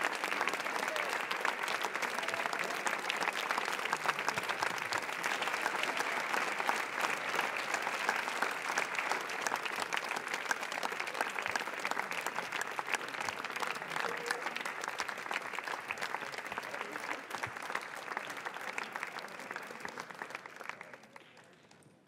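Large audience applauding: dense, continuous clapping that dies away near the end.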